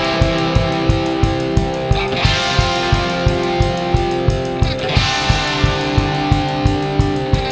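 Rock music with guitar over a fast, steady drum beat of about three beats a second.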